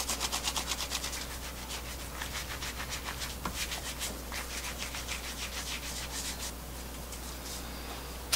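Hands rolling soft yeast dough for kkwabaegi twisted doughnuts, between the palms and on a floured countertop: quick, even rubbing strokes that grow fainter near the end.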